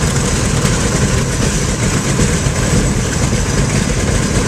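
The DC-7B's number three Wright R-3350 Turbo-Compound radial engine, running steadily just after catching on start-up, with a loud, low, even rumble.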